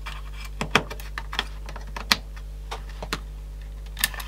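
Small sharp clicks and taps at irregular intervals, the loudest about a second and two seconds in, from the open cassette walkman mechanism being handled and checked, over a steady low hum.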